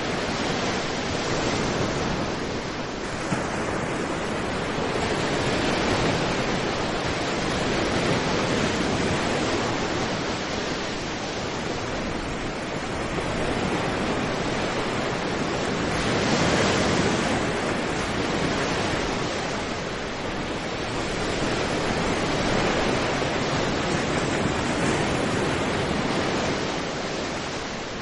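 Sea waves breaking on a sandy beach, foam washing up the shore: a continuous rushing surf that swells and eases every few seconds.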